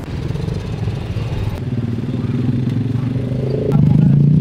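Street traffic with a motorcycle engine running close by, its steady drone getting louder near the end.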